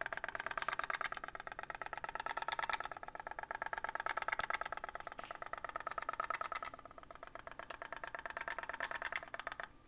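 Candle-heated pop-pop (putt-putt) boat's handmade drink-can boiler popping rapidly and evenly, many times a second, as the steam drives water out of the rear exhaust; the popping stops near the end.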